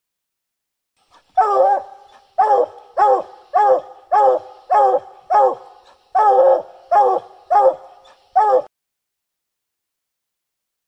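Bluetick coonhound barking treed: about eleven short, loud barks in a steady rhythm, roughly one every two-thirds of a second, stopping a couple of seconds before the end. It is the tree bark that tells the hunter the quarry is up the tree.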